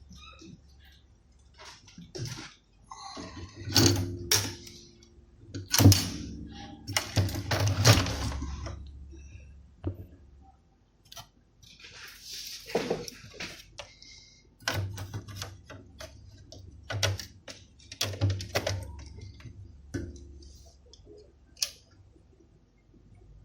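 Irregular clicks, knocks and rustling of small tools and parts being handled and moved about on a workbench, over a faint low hum.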